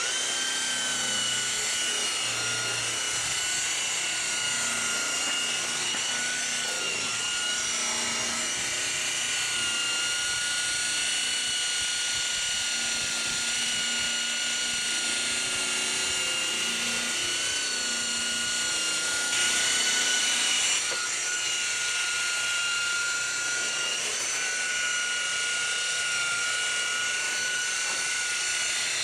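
Corded electric rotary polisher with a wool buffing pad running steadily against car paint, a constant high motor whine with the hiss of the pad, as it buffs sprayed vandal paint off the finish. The sound swells briefly about twenty seconds in.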